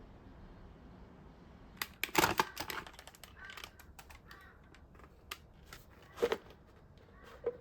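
Clicks, knocks and a short clatter of hard plastic parts being handled, a vacuum cleaner being taken apart for cleaning. The loudest clatter is about two seconds in, with another sharp knock about six seconds in. The vacuum's motor is not running.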